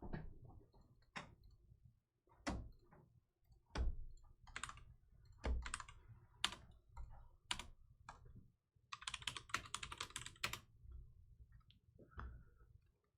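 Typing on a computer keyboard: scattered single keystrokes, then a quick run of keys about nine seconds in.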